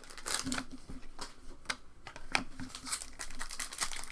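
Trading cards and their packaging being handled: an irregular run of crinkling rustles and short flicks as cards are sorted through.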